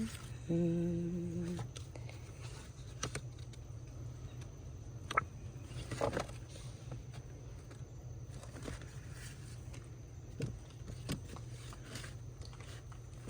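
A woman hums a few notes, ending about a second and a half in. After that come only faint scattered taps and rustles over a steady low hum.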